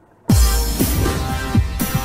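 Electronic outro music that starts abruptly about a quarter second in, with a fast run of deep drum hits that each drop in pitch.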